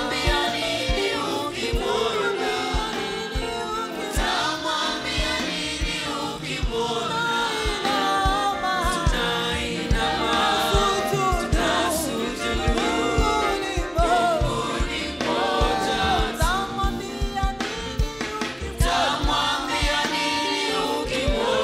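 Live gospel worship song sung in Swahili by a lead singer and group voices, backed by a band with a steady drum beat.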